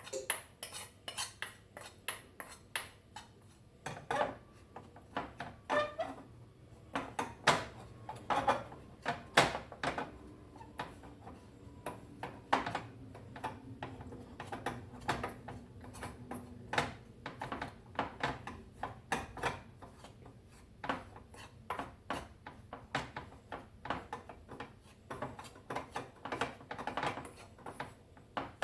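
Metal spoon stirring and scraping against a cooking pan, a rapid run of clinks and scrapes several times a second, as roasted turmeric, dry ginger powder and jaggery are worked together over a low flame.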